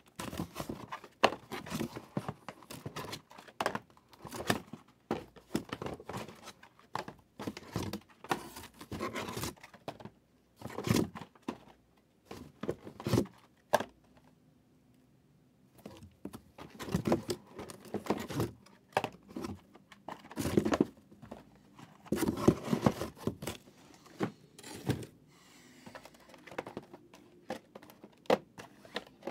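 A sealed cardboard case of trading-card hobby boxes being opened and unpacked by hand: repeated tearing, crinkling and scraping of cardboard and wrapping, with a pause of about two seconds halfway through.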